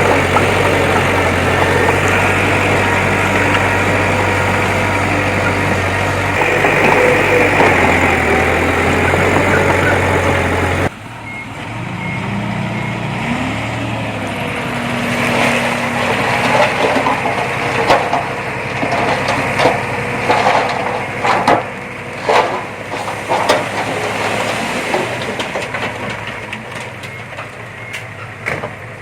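Heavy diesel earthmoving machinery running steadily and loudly. About eleven seconds in it cuts abruptly to a quieter engine with a brief rising whine, followed by a run of sharp clanks and knocks, typical of tracks, a blade or a dump bed handling soil and rock.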